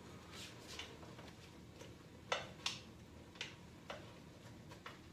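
Pots and kitchen utensils knocking and clicking on the stove: a handful of sharp, separate clicks, the two loudest about two and a half seconds in.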